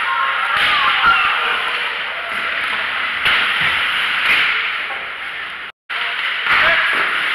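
Live ice hockey play: skates scraping and carving on the ice, with several sharp clacks of sticks and puck and thuds against the boards. The sound cuts out for a moment about six seconds in.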